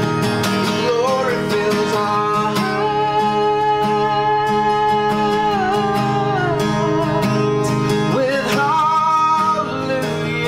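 Acoustic guitar strummed steadily, with a man singing over it in long held notes, one about three seconds in and another near the end.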